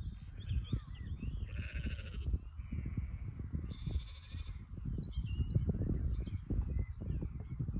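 Wind buffeting the microphone in uneven gusts, with animal calls in the background, short chirps and a few longer calls.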